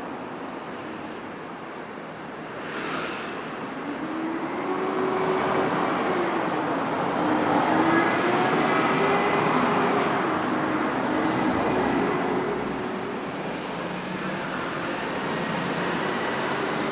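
City street traffic: a steady wash of road noise, with one vehicle's engine passing by and growing louder toward the middle before fading. A short hiss comes about three seconds in.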